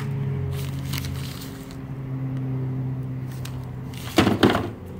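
A steady low machine hum, with a brief loud scraping rustle from something being handled about four seconds in.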